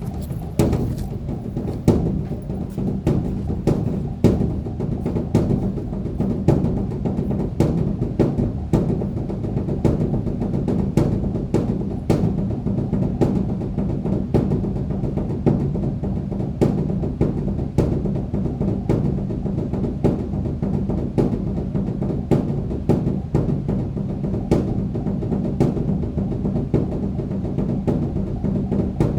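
Large temple drum beaten continuously in a rolling rhythm, with sharper stick strikes standing out about once or twice a second over a steady low booming.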